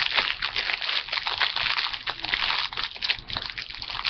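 Plastic snack packaging crinkling and crackling as it is handled, in quick irregular bursts.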